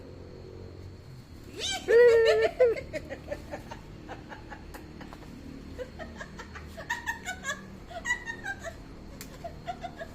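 Domestic cat meowing once, loud and drawn out for about a second, about two seconds in. From about six seconds in comes a run of short, high calls that fall in pitch.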